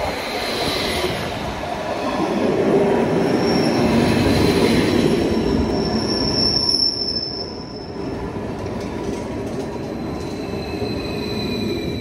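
Vy electric multiple-unit passenger train rolling past at speed, wheel and track noise loudest in the middle with a high wheel squeal. The noise drops a little after halfway as the last cars go by.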